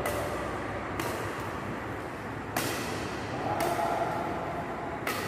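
Badminton rackets hitting a shuttlecock back and forth in a rally: five sharp strikes spaced about a second to a second and a half apart.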